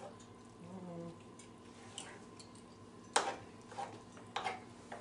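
A metal spoon stirring creamed and whole-kernel corn in a skillet, clinking against the pan: four sharp knocks in the second half, the first, about three seconds in, the loudest.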